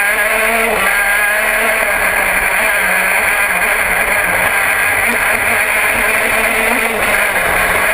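KZ2 shifter kart's 125cc two-stroke Vortex engine at racing speed, rising in pitch near the start and then running hard at high revs. A steady rush of wind and wet-track spray blends with the engine.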